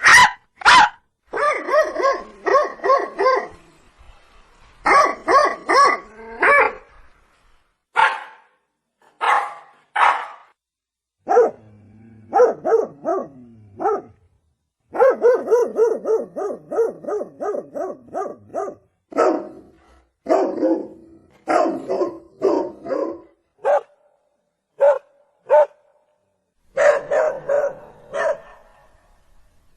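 Dog barking over and over: single barks and quick runs of several barks a second, broken by short pauses. About twelve seconds in comes a lower, drawn-out sound that glides in pitch.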